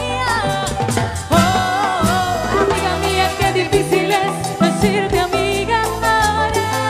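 Live cumbia band playing, with accordion, electric guitar, bass and percussion over a steady beat, and a woman singing lead into a microphone.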